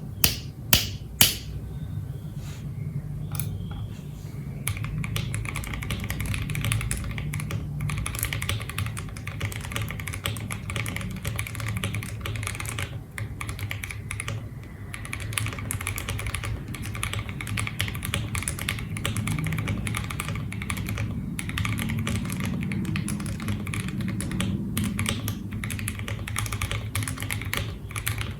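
Typing on an OwLab Voice65 mechanical keyboard with a PE plate, Krytox 205-lubed Kon-momo switches and cherry-profile keycaps. A few sharp, separate clacks in the first second or so, then fast continuous typing from about four seconds in, with a couple of short pauses.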